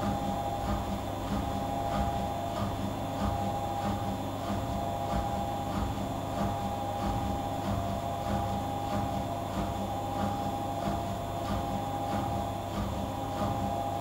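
Gorenje WA65205 front-loading washing machine spinning a wet king-size duvet in its final spin: a steady motor whine and drum hum with a regular pulsing about twice a second.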